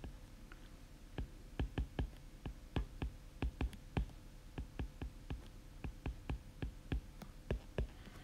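Stylus tip tapping and clicking on a tablet's glass screen during handwriting: an irregular run of sharp taps, a few each second, starting about a second in and stopping near the end.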